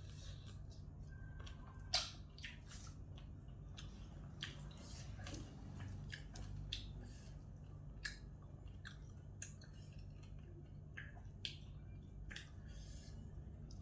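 Wet chewing and mouth clicks of someone eating a glass-noodle seafood salad, with scattered sharp clicks, the loudest about two seconds in, over a steady low hum.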